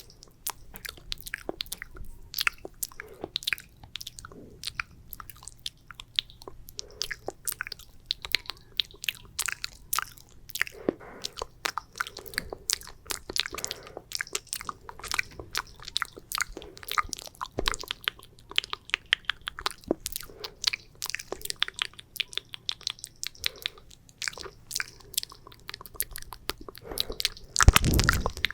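Close-miked wet mouth sounds: sticky saliva clicks and smacks in a quick, dense run, with a louder low thump near the end.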